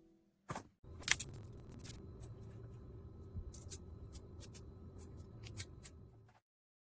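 Small plastic magnetic building cubes clicking and snapping together as they are handled, a string of irregular sharp clicks, the loudest about a second in.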